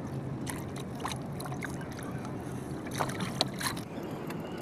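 Steady low wash of water around a small outrigger canoe, with a series of sharp taps and splashes, loudest about three seconds in, as a needlefish caught on a handline is pulled in and handled on board.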